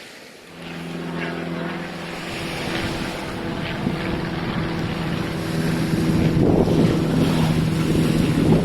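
Motorboat engine running with a steady hum that grows louder, with wind buffeting the microphone and a wash of water.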